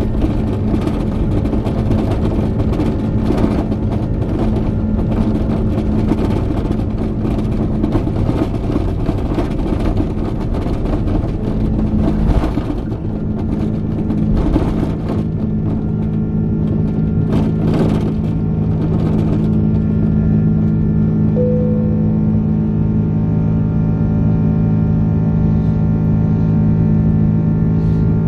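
Inside the cabin of an Airbus A330-300 during takeoff: the engines run at takeoff power under a loud rumble of the wheels on the runway, with many small knocks and jolts. About twenty seconds in the runway rumble and knocks die away as the airliner lifts off, leaving a steady engine drone.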